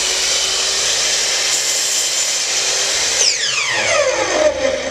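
Electric miter saw running at full speed with a steady high whine while its blade is lowered through a board for a thin trim cut. A little over three seconds in, the trigger is released and the motor's pitch falls quickly as the blade winds down.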